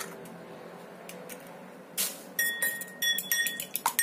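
A fork beating an egg in a small ceramic bowl: quick clinks against the side of the bowl, each with a short ringing tone. The clinking starts just after halfway in, following a brief rustle.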